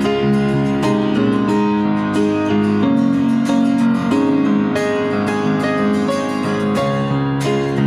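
Piano playing a song's introduction: a steady succession of chords and notes.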